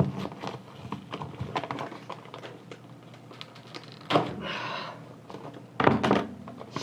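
Packaging wrap being pulled and torn open by hand: scattered crinkles and scrapes, with a louder tearing rasp about four seconds in and another sharp one near six seconds.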